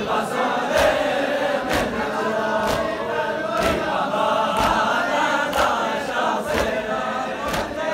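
Large crowd of men chanting a mourning lament in unison, with a sharp slap about once a second from rhythmic chest-beating (matam).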